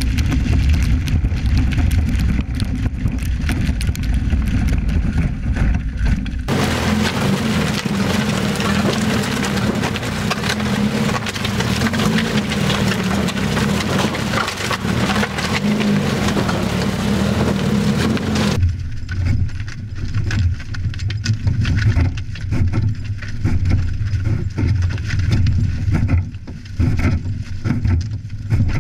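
Classic Lada driving on log sections in place of wheels over wet asphalt: the engine running and the wooden wheels rumbling and scraping. The sound is a heavy low rumble close to the wheel at the start and again from about two-thirds of the way in, and an even hiss with a steady engine note in between.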